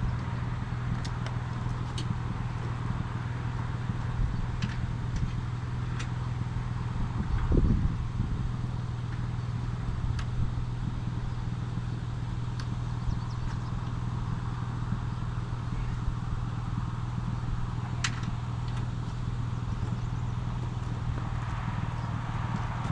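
Tow vehicle's engine idling with a steady low hum, with a few faint clicks and one thump about seven and a half seconds in.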